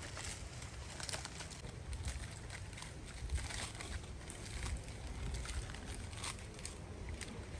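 Irregular crackling and rustling of dry leaves, over a low steady rumble.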